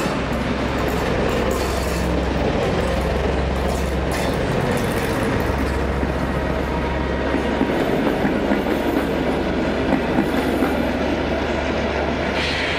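Ganz SN61 diesel railcar pulling away under power, its engine giving a steady low drone. The carriages' wheels clack over the rail joints as they roll past.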